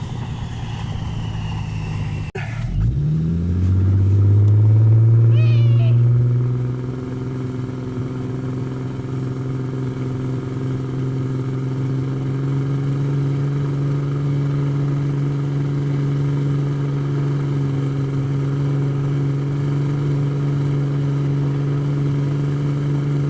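Jeep engine driving through snow. A few seconds in it revs up and is loudest for a couple of seconds, then settles into a steady drone at an even pitch.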